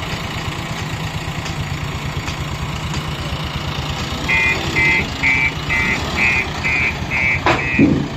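JCB 3DX backhoe loader's diesel engine idling steadily. About halfway through, a high beeping starts: eight short beeps, about two a second. A sharp knock comes near the end.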